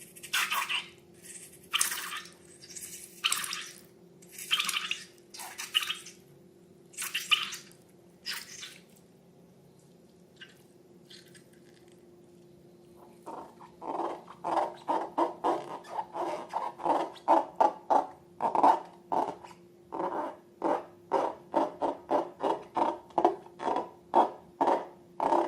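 Wet slime being squished and worked by hand: separate squelches a second or so apart, a pause, then a fast, even run of squelches, two to three a second.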